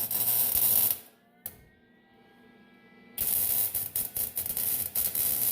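Lincoln Electric 140 wire-feed welder arc crackling and buzzing in two runs: the first stops about a second in, and after a pause with a single click the second starts about three seconds in.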